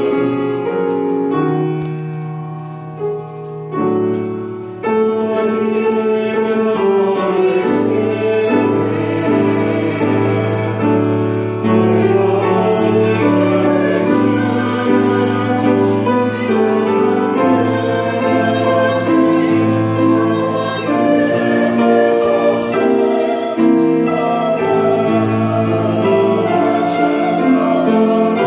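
Choral music: voices singing slow, sustained chords with instrumental accompaniment. The sound grows fuller about four seconds in, and a low bass line joins a few seconds later.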